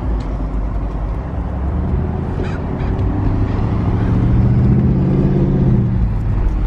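Car V8 engine pulling away at low speed across a car park. The revs climb steadily from about two seconds in, then ease off near the end, over a low road rumble.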